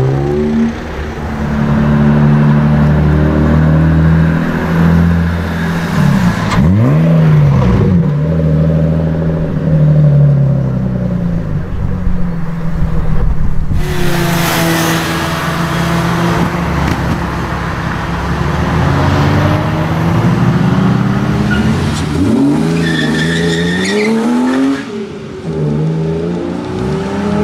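BMW E36 engines revving and accelerating away, several cars one after another, each rising in pitch as it pulls and falling off between gears.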